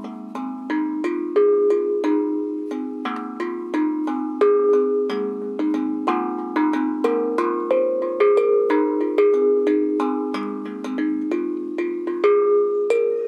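Homemade steel tank drum (tongue drum) struck with felt mallets: a steady stream of ringing metal notes, several a second, each sustaining into the next. The notes are played on the side of the drum tuned to a major scale.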